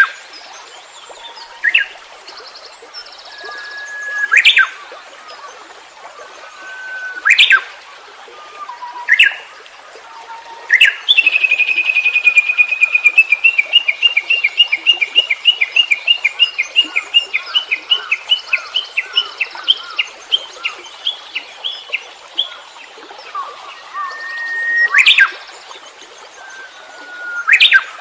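Wild birds singing. One bird repeats a call every few seconds: a short held whistle that snaps into a sharp rising sweep. In the middle, a long trill of quick notes runs for about ten seconds, gradually slowing.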